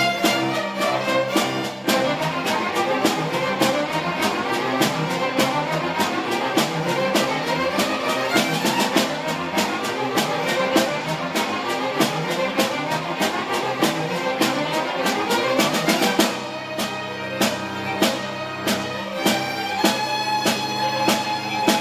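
Children's school orchestra playing a soundtrack piece: bowed strings in fast running notes over a steady drum-kit beat, settling into long held chords about sixteen seconds in.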